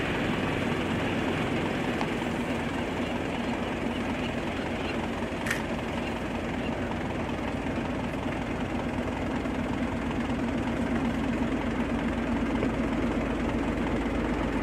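A vehicle engine idling steadily, with one short click about five and a half seconds in.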